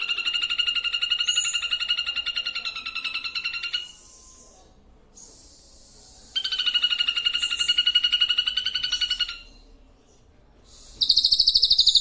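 A songbird's long, very rapid, buzzy trill, given three times with short pauses between, with a brief hiss in the first pause; it is a lure song (pancingan) played to provoke caged birds into singing.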